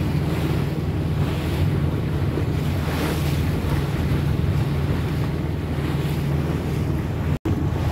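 A small boat's 35 hp diesel engine running steadily under way, a constant low drone, with wind on the microphone and water rushing past the hull. The sound cuts out for an instant near the end.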